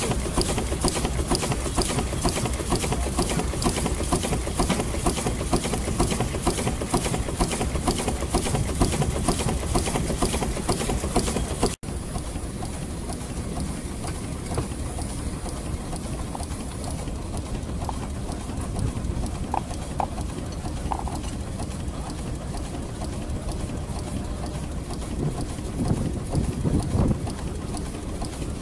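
Steam engine running, its cylinder and valve gear beating in a fast, even rhythm. After a cut about 12 seconds in, a second steam engine runs more quietly in the same even rhythm, with a few short tones and some louder low rumbling near the end.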